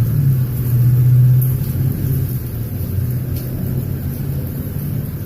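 A low, steady rumble during a thunderstorm, loudest about a second in and then slowly fading. It doesn't sound like thunder and sounds kind of weird.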